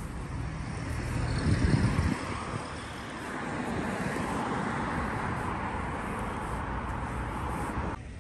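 Road traffic on a multi-lane street: a steady rush of tyre and engine noise from passing cars, with a louder low rumble about a second and a half in, cutting off suddenly near the end.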